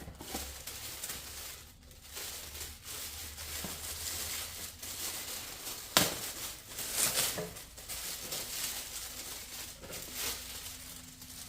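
Packaging crinkling and rustling as accessories are handled and unpacked from a small box, with one sharp click or knock about halfway through.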